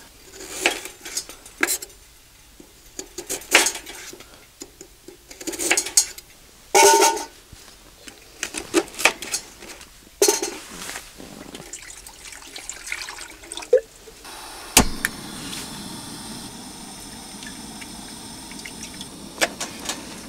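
Pots, dishes and utensils clinking and clattering in short irregular knocks during cooking prep. About fifteen seconds in comes one sharp knock, followed by a steady rushing hiss.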